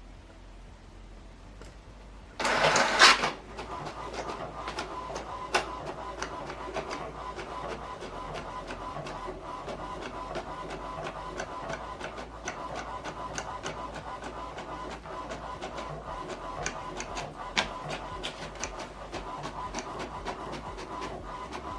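HP DeskJet 3700-series inkjet printer printing the second side of a manually duplexed page: a loud burst of mechanical noise about two and a half seconds in, then steady running with frequent sharp clicks.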